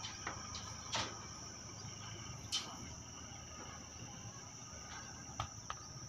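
Faint, steady high-pitched chirring of insects, with a few sharp clicks at about 1, 2.5 and 5.5 seconds.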